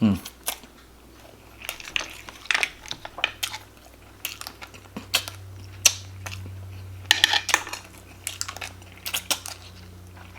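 Cutlery clinking against a bowl while eating, heard as a scattered run of sharp clicks and clatters, over a faint low steady hum.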